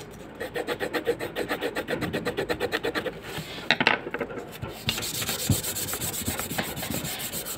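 Rapid back-and-forth scribbling of a pencil on paper, about ten strokes a second. A short louder scrape comes about four seconds in, then steadier, faster rubbing.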